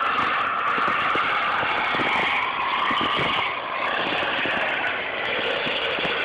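Diesel engine of a heavy articulated tractor running hard under load as it fords a deep river, with water churning around the wheels.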